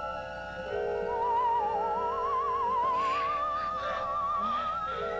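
Eerie background music: a high, wavering tone slowly gliding upward over held chords.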